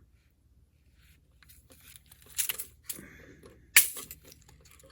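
Small metal jewelry parts clicking and rattling as a container of jump rings is rummaged through, with one sharp click near four seconds in.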